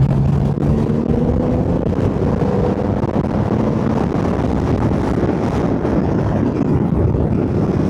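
Loud wind buffeting on the recorder's microphone at road speed on a Triumph Rocket 3 R Storm, with the bike's 2.5-litre three-cylinder engine showing faintly through as a steady note. The rider puts the wind noise down to the microphone facing down into the airflow.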